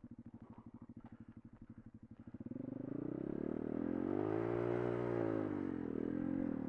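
Pit bike's small single-cylinder engine chugging at low revs. About two and a half seconds in, it revs up, rising to a peak about halfway through and falling back, then picks up again near the end as the bike is spun around in a donut.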